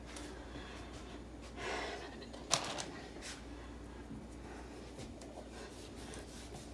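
Faint handling sounds of hands rubbing oil between the palms, with one sharp click about two and a half seconds in, over quiet room tone.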